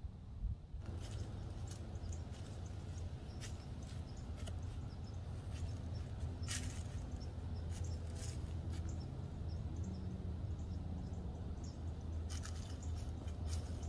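Irregular crunches and rustles of an animal stepping through dry fallen leaves, with a small cluster of steps near the end, over a steady low rumble.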